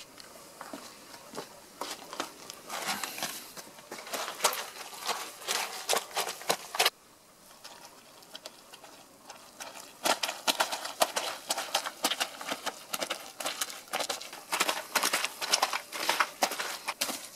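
Foley hoofbeats of herd animals moving through mud: a quick, irregular patter of squelching steps. It cuts off abruptly about seven seconds in and starts again about three seconds later.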